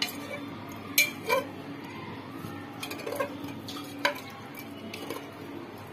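A metal spoon stirring fried chicken pieces in a pressure cooker, with several sharp clinks as the spoon knocks against the pot's sides.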